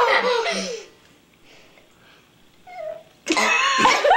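A long human belch trails off in the first second. After a pause of about two seconds, loud laughter breaks out.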